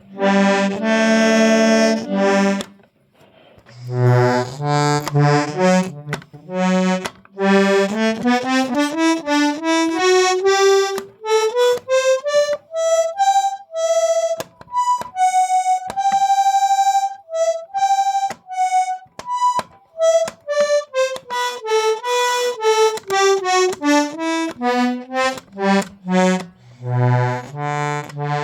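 Hohner melodeon (diatonic button accordion) in for repair, played through: a held chord, a few bass notes, then single treble notes one at a time stepping up the scale to a long held high note and back down again, with bass notes returning near the end.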